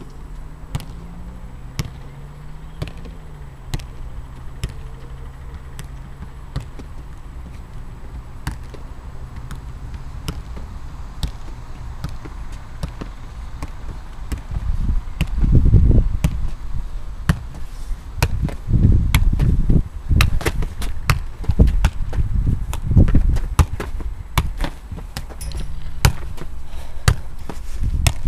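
A football being kicked and bouncing on an artificial pitch: sharp knocks at uneven intervals. From about halfway, low rumbling buffeting on the microphone becomes the loudest sound.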